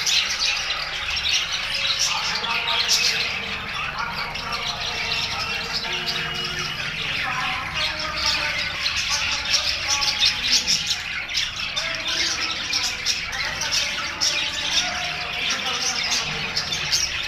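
A flock of budgerigars chattering and warbling without pause, with many short squawks and chirps overlapping.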